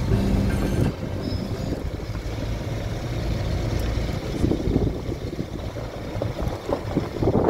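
Wind buffeting the phone's microphone, a gusty low rumble that rises and falls. A low steady hum cuts out about a second in.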